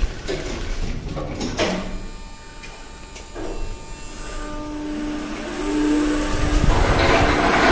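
Schindler passenger lift setting off in its shaft. A few sharp clicks come first, then a steady motor hum starts about four seconds in, joined by a rising whine, and a rushing noise grows louder near the end as the car gets under way.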